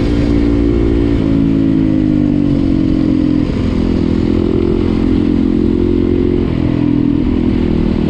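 Off-road motorcycle engine running as the bike is ridden along, its note holding steady and then shifting to a new pitch a few times with gear or throttle changes.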